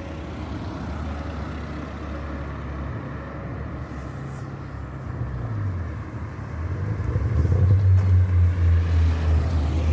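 Car engine rumbling at low revs, getting clearly louder from about seven seconds in.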